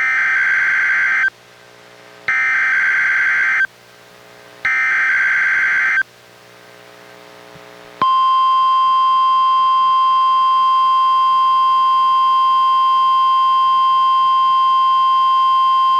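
Three short bursts of SAME digital alert header data from a weather radio, a harsh buzzing screech about a second and a half each with short gaps between. After a pause comes the steady 1050 Hz NOAA Weather Radio warning alarm tone, starting about halfway through and held unbroken.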